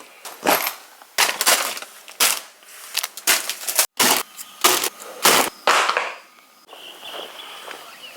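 A series of short, sharp crackling or crunching bursts, roughly two a second, stopping about six seconds in. A fainter stretch with a thin steady high tone follows near the end.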